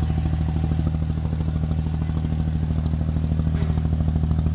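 Diesel engine of a Dubai Creek abra, a wooden water taxi, running steadily under way with a low, even, rapid throb.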